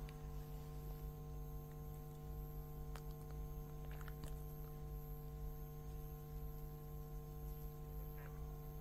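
Faint, steady electrical-sounding hum with a low rumble beneath it.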